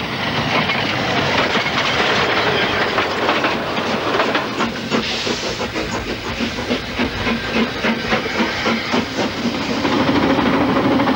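Narrow-gauge train running along the line: a steady rush of running noise with rapid clicks of the wheels over the rail joints. A low steady drone comes in near the end as the train passes through a tunnel.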